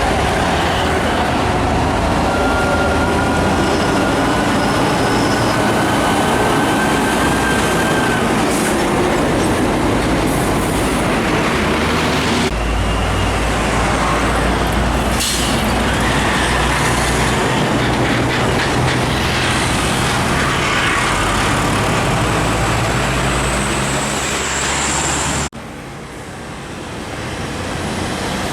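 Heavy trucks passing on a busy highway: steady engine and tyre noise. The sound changes abruptly about twelve seconds in and drops sharply about twenty-five seconds in.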